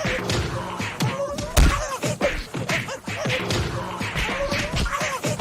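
Cartoon fight-cloud sound effect: a rapid, continuous jumble of thumps, whacks and slaps mixed with squeaky cries and sliding pitched tones, with one heavier hit about one and a half seconds in.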